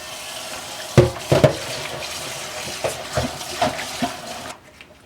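Tap water running over a stainless steel pot being rinsed, with several knocks of the pot as it is handled. The water shuts off suddenly near the end. This is the final rinse after the polishing compound has been cleaned off.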